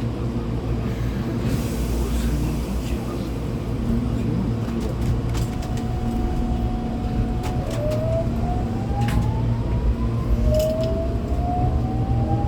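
Hankyu 8200 series train's Toshiba GTO-VVVF inverter under a low running rumble: about halfway in a steady tone sounds, then the inverter whines in a series of rising tones that step upward, the sound of the train accelerating. A few sharp clicks fall in the middle.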